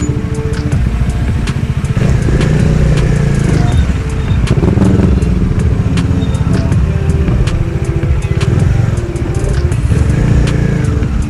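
Motorcycle engine running at low speed in slow, stop-and-go traffic, with a heavy steady low rumble.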